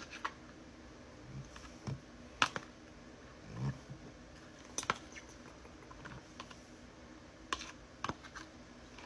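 Scattered sharp clicks and taps, a handful of them spaced a second or more apart, from a metal spoon knocking against a plastic takeout container and plate as curry is spooned over rice, with a few soft low sounds between.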